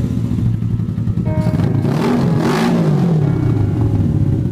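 1981 Suzuki GS450S parallel-twin engine running and being revved by hand on the throttle, its pitch rising and falling a couple of times.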